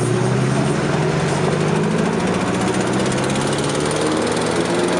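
A car engine revving hard and held at high revs, its pitch creeping slowly upward for the first two seconds or so and then holding steady.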